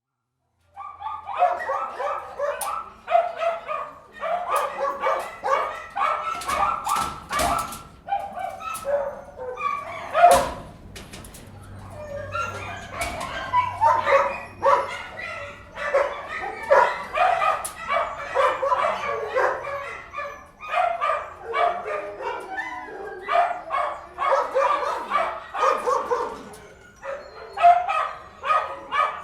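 Many dogs barking, yipping and whining at once inside a kennel, the barks overlapping continuously with the kennel's echo, and a few sharp knocks among them, the loudest about ten seconds in.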